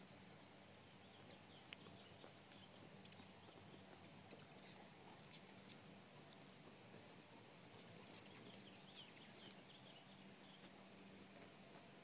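Faint, scattered short high chip calls of hummingbirds around a feeder, coming in quick clusters that are thickest a little past the middle, over a faint steady low hum.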